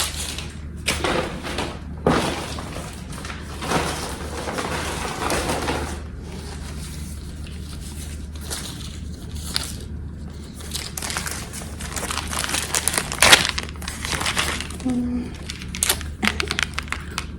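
Packaging crinkling and rustling in irregular bursts with a few sharp clicks, as items are unwrapped by hand. A faint steady hum sits underneath.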